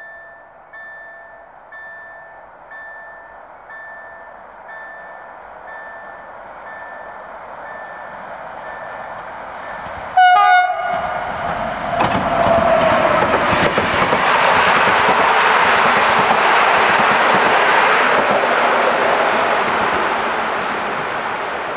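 A level-crossing warning bell dings about once a second while an electric locomotive approaches. About ten seconds in, the locomotive gives one short, loud horn blast, then the passenger train runs through the station, its noise building and slowly fading.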